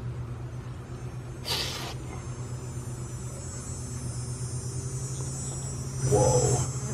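Aerosol insecticide can giving a short hiss of spray through a straw nozzle about a second and a half in, over a steady low hum.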